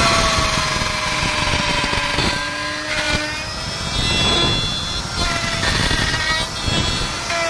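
Electric wood router running at speed, its 8 mm bit cutting a slot through a teak speargun stock. A steady motor whine that sags a little in pitch as the bit cuts.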